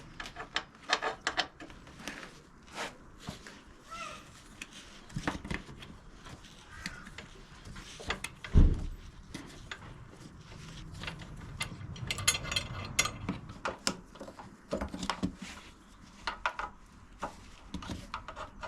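Scattered clicks, rattles and knocks of a motorcycle seat and its fittings being worked loose and handled by hand, with one heavy thump about eight and a half seconds in.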